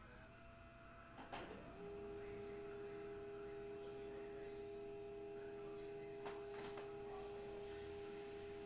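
A faint click about a second in, then a steady low hum sets in and holds unchanged.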